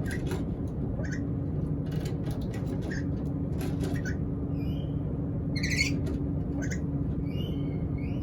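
Hungry black-capped lory giving short, high squeaks and chirps with scattered clicks, and one louder rising squawk a little after the middle. A steady low hum runs underneath.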